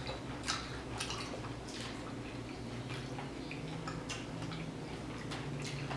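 Close-up eating sounds: chewing and wet mouth clicks, with a knife and fork clinking on a plate as steak is cut. Short, irregular clicks over a faint low hum.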